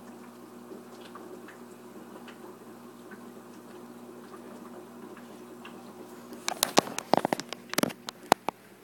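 Steady low hum with faint bubbling from an aquarium's air-driven sponge filter. About six and a half seconds in, a quick run of sharp clicks and knocks lasts about two seconds and is the loudest sound.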